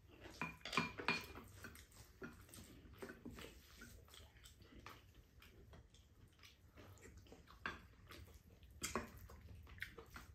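Spoons clinking and scraping against ceramic bowls of rice during a meal, in scattered light clicks with a few sharper ones about a second in and again near the end.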